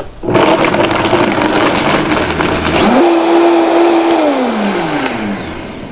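Countertop blender motor starting up and running loud, blending a coconut-milk drink. Its whine steps up in pitch about three seconds in, then falls steadily as the motor winds down.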